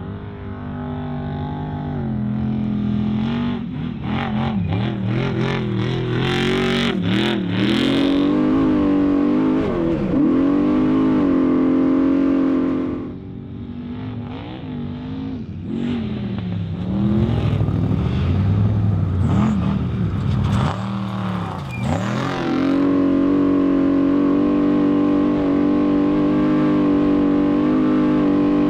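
Unlimited desert trophy truck's race engine under hard throttle, its pitch rising and falling as the driver gets on and off the gas, with a brief dip about halfway through and a steady high note over the last several seconds. A burst of sharp clatters sounds early on the rough course.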